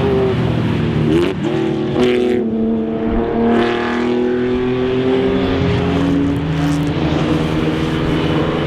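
Historic racing car engine accelerating hard on track, its pitch climbing through the gears with quick drops at each upshift.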